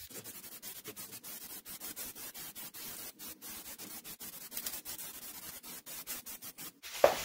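Dupli-Color aerosol spray paint hissing, played fast-forward so it comes as a rapid, choppy run of short hisses. A brief louder sound comes near the end.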